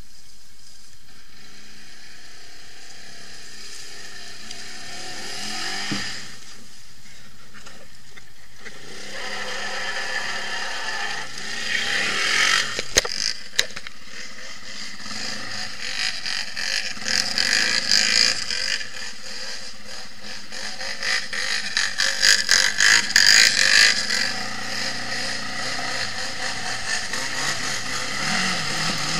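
Off-road quad and buggy engines running, steady and fairly quiet at first, then revving up and down in repeated bursts from about a third of the way in, with a couple of sharp knocks near the middle.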